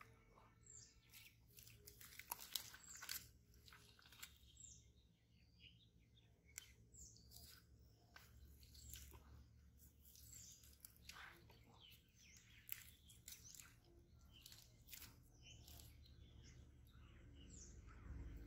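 Faint close-up clicks and crackles of hands working a hook out of a small freshly caught fish, with faint bird chirps in the background.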